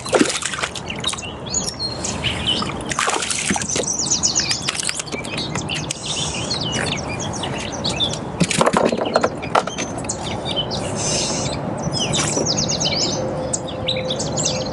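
Songbirds chirping in quick repeated series, over an even wash of water and wind noise. A hooked bass splashes at the surface beside a kayak, loudest near the start and again around the middle.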